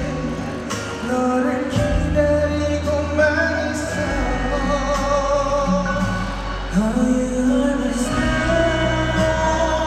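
A man singing live into a microphone over backing music, holding long notes and sliding between pitches.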